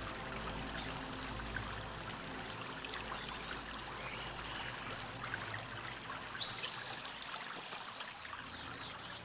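Steady rushing of running water, like a stream.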